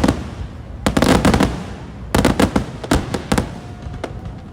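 Fireworks going off in rapid crackling volleys of sharp bangs, one cluster about a second in and a longer run from about two seconds to three and a half seconds, with a few scattered pops after.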